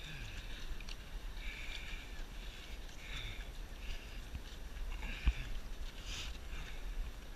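Close-up sounds of someone climbing a net of webbing straps: their breathing comes in a rhythm about once a second, over a low rumble of the camera rubbing and moving. A sharp knock about five seconds in, with fainter ones around it.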